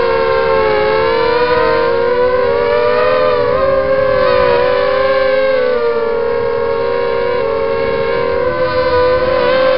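Brushless motors and propellers of a ZMR250 racing quadcopter (Emax 2300 kv motors) whining loudly in flight, heard close from its onboard camera. Several near pitches weave up and down together as the throttle changes.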